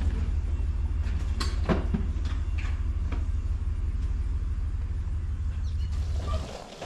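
Mariner 60 hp outboard engine turned over by its electric starter without starting: a steady, rapid low churning that cuts off abruptly a little before the end. The engine is being cranked with the throttle pulled forward so that the maximum ignition timing can be read with a timing light.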